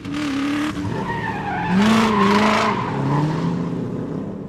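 Race car sound effect: engines revving with tyre squeal, pitch gliding, loudest about two seconds in and easing off toward the end.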